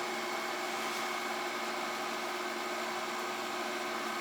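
Steady, even hiss with a few faint constant hum tones underneath, unchanging throughout.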